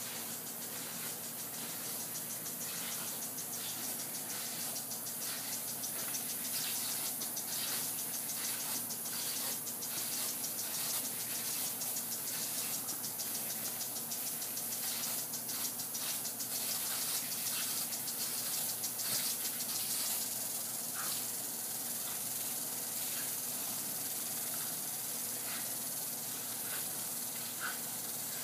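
Lawn sprinkler on a garden hose spraying water with a steady hiss, with many faint ticks through it.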